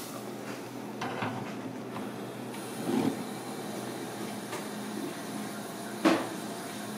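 Steady hiss of a lit gas stove burner over a low kitchen hum, with a few knocks of the aluminium pan and utensils on the stove. A duller knock comes about three seconds in, and the loudest, sharpest knock near the end.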